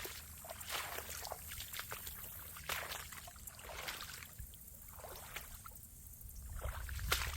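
A hiker's footsteps on the trail: irregular crunching and crackling steps with a low rumble underneath, thinning out to a quiet stretch past the middle before picking up again near the end.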